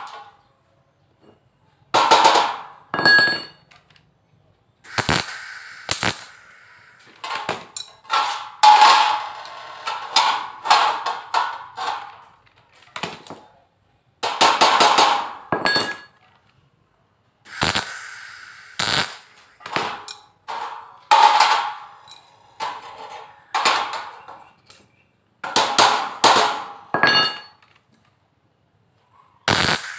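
Wire-feed welder tack-welding the corners of a light steel trim frame: about fifteen short bursts of arc noise, each up to a second or so long, with a few metallic clinks of the adjustable wrench and frame between them.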